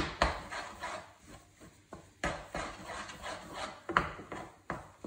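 Wooden spatula stirring thick semolina porridge in a frying pan: irregular knocks of the wood against the pan with scraping in between.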